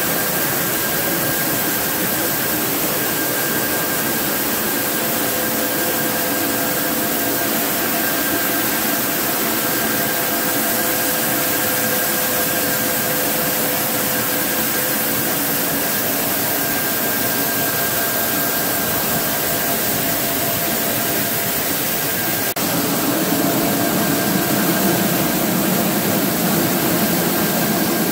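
Corn mill machinery running: a steady, loud mechanical noise with a couple of steady whining tones in it. It grows louder, with more low rumble, about three-quarters of the way through.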